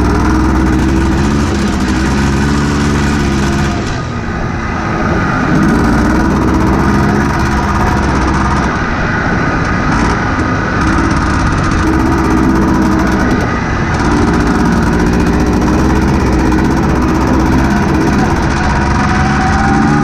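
1986 Honda Odyssey buggy's single-cylinder four-stroke engine running under throttle on a dirt trail. The engine eases off briefly about four seconds in, then picks back up and runs steadily.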